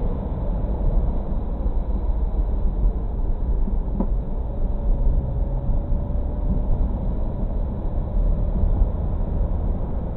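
Steady road noise inside a moving car on a wet road, picked up by a dashcam microphone: a low rumble of tyres and engine, with one faint click about four seconds in.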